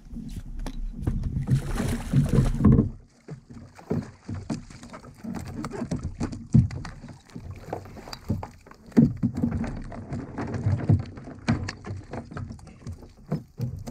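Water splashing and sloshing against a fishing kayak, then a long run of irregular knocks and thumps on the kayak's hull as a small kingfish is landed and handled on board.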